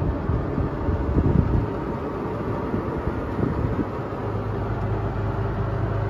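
Farm vehicle's engine running, heard from inside its cab: an uneven low rumble at first, settling into a steady low drone about four seconds in.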